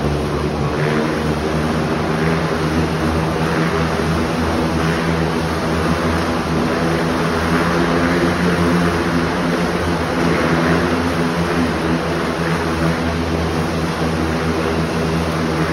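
Several motorcycle engines running steadily inside a steel-mesh globe of death, making a continuous droning whine.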